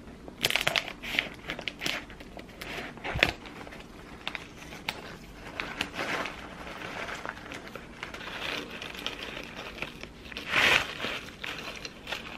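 A crinkly snack bag rustling and crackling as veggie chips are shaken out of it onto a wooden plate, in a string of irregular bursts, the loudest about half a second in, around three seconds in and near the end.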